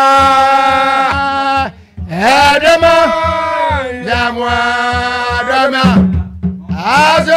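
Asafo company men chanting a traditional song in long held phrases that fall in pitch at their ends, over a drum beaten in a quick steady pulse.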